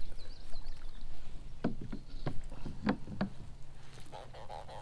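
A run of sharp knocks and clatters against a plastic fishing kayak as a channel catfish is reeled up and lifted aboard, over a steady rumble of wind on the microphone. Near the end a buzzing, pulsing croak starts, the grunt a catfish makes when it is out of the water.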